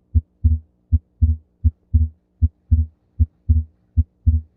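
Recorded heart sounds: a low first sound (S1) followed by a doubled second sound, the 'tuk tuduk' rhythm, repeating a little over once a second over a faint steady hum. The doubling is physiological splitting of S2 on deep inspiration, the aortic valve (A2) closing just before the pulmonary valve (P2).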